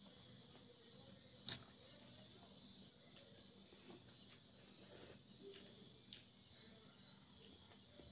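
Quiet hand-eating sounds: fingers mixing rice and curry on a plate and chewing, with small scattered clicks and one sharp click about a second and a half in, over a steady high-pitched hiss.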